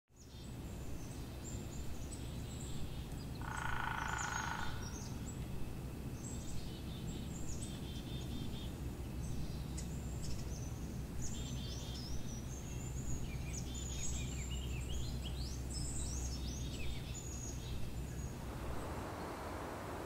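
A chorus of small songbirds singing, many short high chirps and trills overlapping, over a low steady rumble; a louder, harsher call stands out for about a second near four seconds in.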